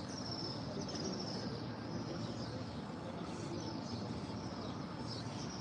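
Steady ambient hum of a large open mosque courtyard, with faint high chirps now and then.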